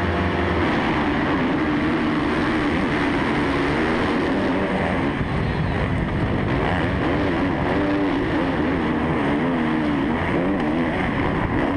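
A pack of motocross bikes at full throttle off the start, the rider's own Suzuki RM-Z450 four-stroke single loudest, its revs climbing and dropping as it shifts and goes through the turns.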